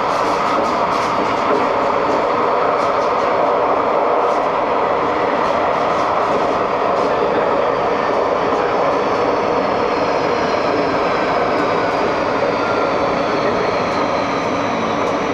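Bombardier Flexity 2 light rail tram running along its track, heard from inside near the driver's cab: a steady rumble of wheels and drive. Over the last few seconds a high whine slowly falls in pitch as the tram slows.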